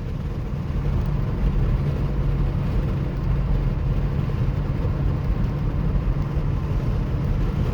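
Road noise inside a moving car: a steady low rumble of engine and tyres with a faint even hum.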